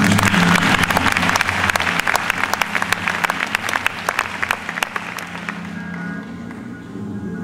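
Audience applauding over the act's background music; the clapping is heaviest at the start and dies away over the last couple of seconds, leaving the music.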